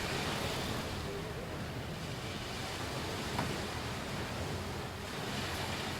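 Ocean surf washing onto a beach: a steady rush of waves that swells a little near the end.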